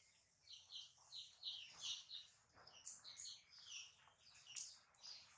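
Small birds chirping faintly, a quick run of short high chirps repeating several times a second.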